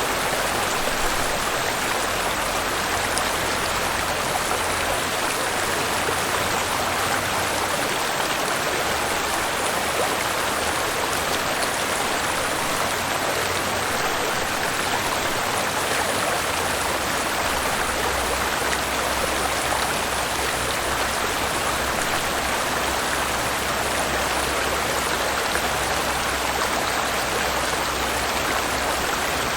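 Waterfall and flowing river water rushing, a steady, unbroken wash of noise.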